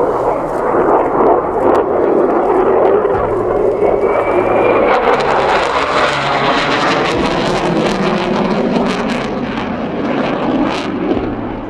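Saab JAS 39 Gripen jet fighter flying past at low level: a loud jet roar that turns brighter and crackling from about four seconds in and eases slightly near the end.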